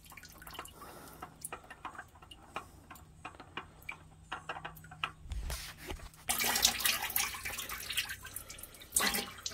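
Engine oil dripping in a quick run of small ticks as a spin-on oil filter is unscrewed by hand, then a louder stretch of handling noise about six seconds in as the filter comes off.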